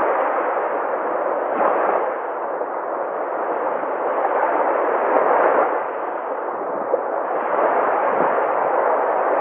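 Sea waves breaking and washing on the shore: a continuous rush of surf that swells and eases every few seconds.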